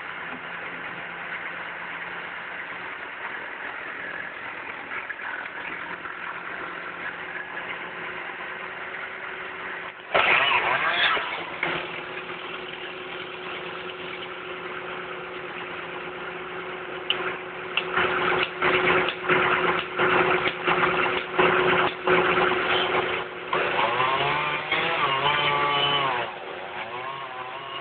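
Chainsaw engine running: a steady idle, a sudden loud burst about ten seconds in, then repeated revs in quick succession, rising and falling in pitch, through the last ten seconds.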